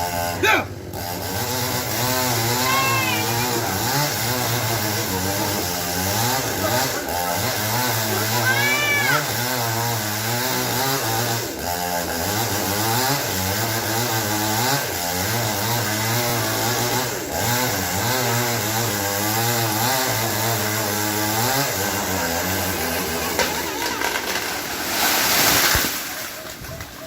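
Chainsaw running, its engine speed rising and falling over and over as it cuts. There is a loud burst of rushing noise near the end.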